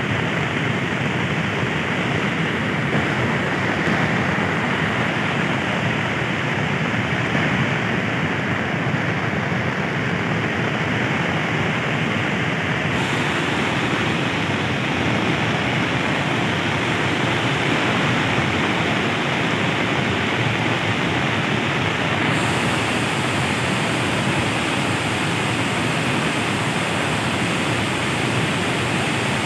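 Floodwater of a swollen river rushing and cascading over a broken concrete bridge deck: a steady, unbroken rush of water.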